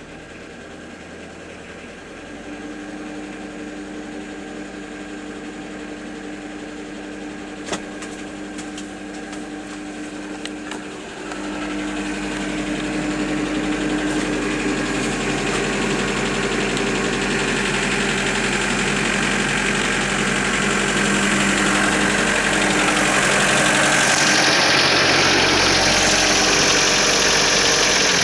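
Car engine running with an unexplained knock that sounds like a connecting-rod knock, though the owner has opened up and checked the rod bearings. The engine grows louder in three steps, with a few sharp clicks about eight seconds in.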